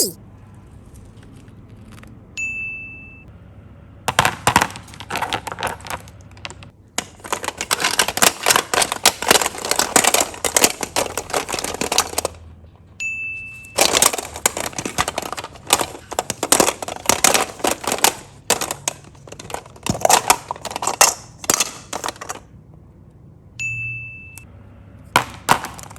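Slime being squished and mixed: long runs of dense, wet crackling and popping clicks in several stretches, broken three times by a short high ding tone.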